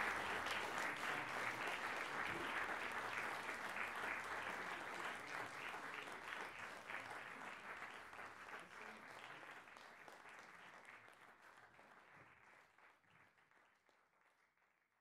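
Audience applauding, many hands clapping together, fading away gradually to silence.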